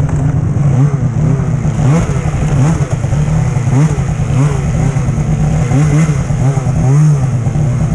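Snowmobile engine running at low speed with short throttle blips, its pitch rising and falling about once a second.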